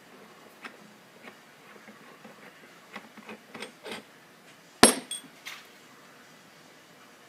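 Metal tools and brake caliper parts tapping and clinking, with one sharp metallic clank about five seconds in that rings briefly, then a few lighter clicks.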